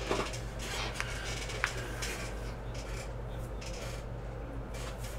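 Rubbing and rustling handling sounds on a tabletop, with two light clicks about a second and a second and a half in, over a steady low electrical hum.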